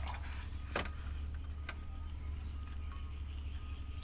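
A plastic bottle and glass bowl being handled: a few light clicks and knocks, roughly a second apart, over a steady low hum.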